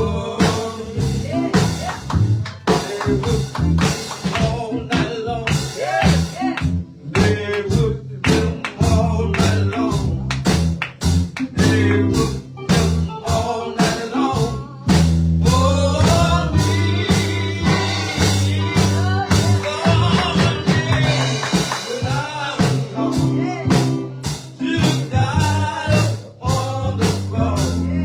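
Live gospel church band playing with a steady drum-kit beat and bass. Voices sing along in places, clearest a little past the middle.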